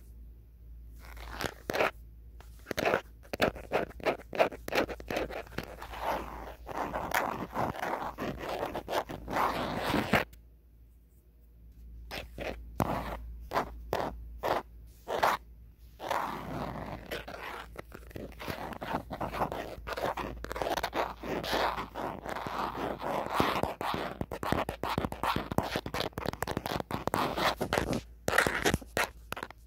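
Natural fingernails scratching and tapping on the back of an old phone, in dense runs of quick clicks and scraping strokes, with a pause of about two seconds roughly a third of the way in.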